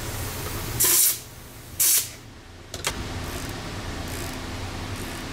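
Two short blasts of compressed air from a handheld air blow gun, about a second apart, blowing off the motorcycle shock part, followed by a small click, over a steady low hum.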